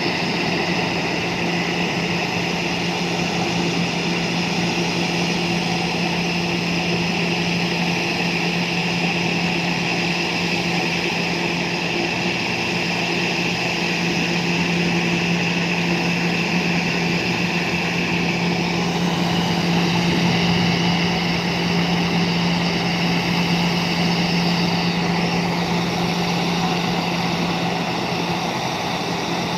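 Airbus A320 airliner's jet engines running at taxi idle: a steady whine over a low hum, the high tones shifting slightly about two-thirds of the way through.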